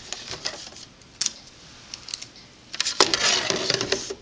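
Hard plastic clicks and clatter from a manual die-cutting machine's fold-out platform and cutting plates being handled, with a sharp single click about a second in and a denser run of clatter near the end.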